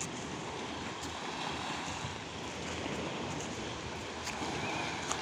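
Small sea waves washing steadily onto a sandy, rocky shore.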